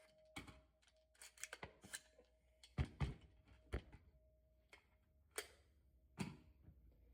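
Scattered light clicks and knocks, a handful of separate taps with the loudest pair about three seconds in.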